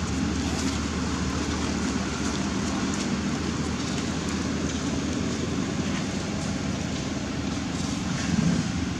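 Steady low rumble with a hiss over it, even throughout and without distinct events.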